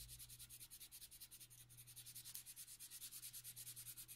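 Faint, quick, evenly repeated back-and-forth strokes of a Zenacolor coloured pencil rubbing on drawing paper, laying in a pale wheat base colour.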